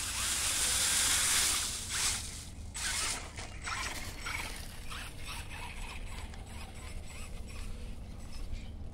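Hosim 1:10 brushless RC truck driving through dry leaves: a loud rushing crackle of leaves for the first two seconds or so, then quieter scattered crackles and ticks as it moves on.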